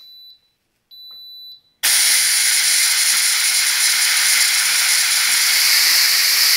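Electric pressure cooker (Instant Pot Max) beeping twice with short high tones, then a steady loud hiss of steam venting from its pressure release valve once the cooking cycle has ended.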